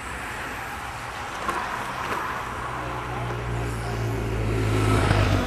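Motorcycle engine approaching and growing louder over the last couple of seconds, loudest near the end.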